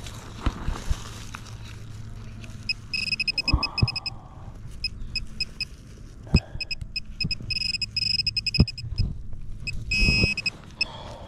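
Metal-detecting pinpointer beeping in fast trains of short high beeps in several bursts, signalling metal close to its tip as it is probed through the dug soil, with scattered knocks and scuffs from handling.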